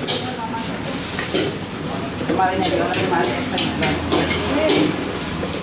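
Egg fried rice sizzling in a steel wok while a metal ladle stirs and scrapes it, with irregular clinks of the ladle against the wok over a steady frying hiss.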